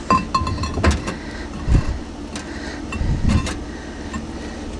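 Concrete blocks being handled and set in place on a concrete-block grill: several knocks and scrapes of concrete on concrete, with a loud low thud a little under two seconds in and a cluster of knocks a little after three seconds, over a steady low rumble.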